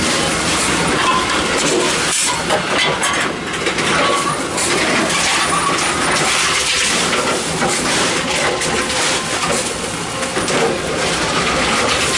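Tomra T-63 reverse vending machine running, a steady, noisy mechanical rush with scattered knocks as plastic bottles are fed in and carried along its conveyor.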